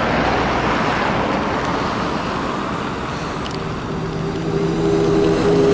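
Road traffic with tyres hissing on a wet, slushy road. About halfway through, the electric traction motor of an approaching trolleybus comes in as a steady hum that grows stronger.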